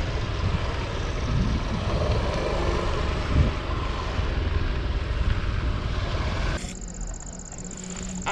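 Wind rushing over the microphone, with a motorcycle engine and road noise underneath while riding. About six and a half seconds in it cuts to a quieter spot with a steady high-pitched insect drone.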